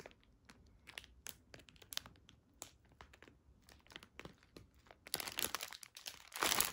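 Clear plastic bag crinkling as it is handled, packed with many small sealed packets of resin diamond-painting drills. Scattered light crackles that turn denser and louder about five seconds in.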